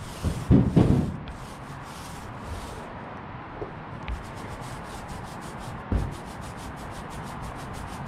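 A small mini paint roller rolling wet paint over a car's sheet-metal body panel, a rubbing, rasping sound. A couple of heavier strokes come near the start, and from about halfway the roller gives a fast, even run of short rasps as it is worked back and forth.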